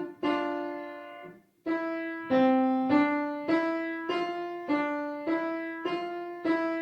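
Piano playing a simple beginner right-hand melody one note at a time around middle C. A long held note comes first, then after a short pause a steady run of single notes, each ringing on as it fades, played a little louder.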